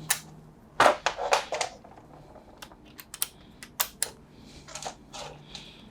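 Irregular small clicks, taps and short rattles of hands handling screws and parts while reassembling a front-loading washing machine.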